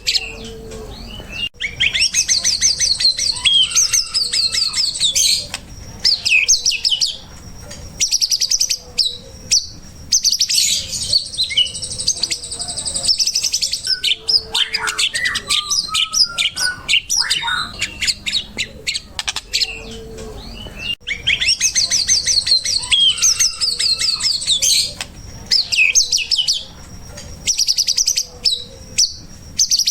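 White-rumped shama (murai batu) singing a loud, varied song of rapid high trills and whistled phrases, broken by short pauses.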